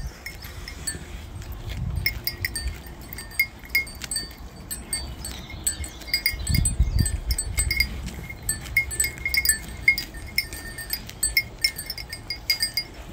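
A small bell tinkling in short, irregular clinks, always at the same few pitches, with low rumbles on the microphone about two seconds in and again around seven seconds.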